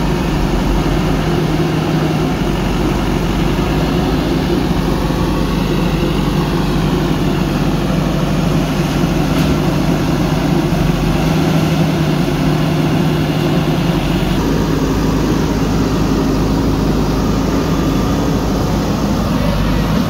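JCB backhoe loader's diesel engine running steadily close by, its tone shifting once about two-thirds of the way in.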